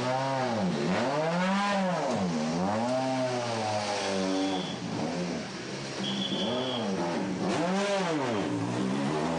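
Rally car engine revving hard and easing off over and over, its pitch climbing and dropping about every second or so as it accelerates and slows through a stage. A brief high whistle sounds twice in the middle.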